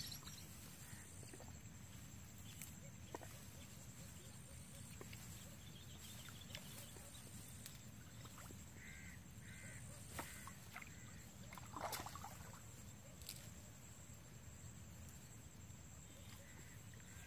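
Faint outdoor river-bank ambience with a steady low rumble; a few short crow-like caws about halfway through, and one brief louder noise a little later.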